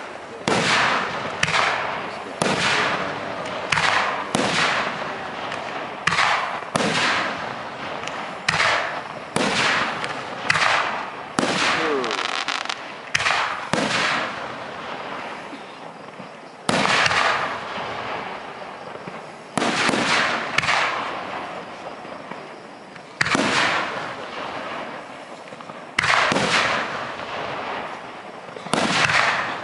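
Aerial firework shells bursting overhead in a string of loud bangs, each one trailing off over a second or so. They come about once a second for the first half, then more spaced out, a few seconds apart.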